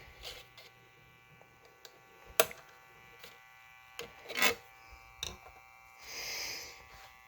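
A record being changed on a 1958 Artaphone record player: a few sharp clicks and knocks, and a short scraping rustle near the end. Under them runs the steady faint buzz of the player's motor.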